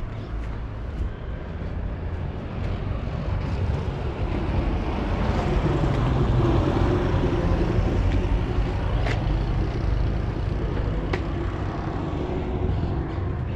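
A motor vehicle drives past, its engine and tyre noise swelling to a peak about halfway through and then fading.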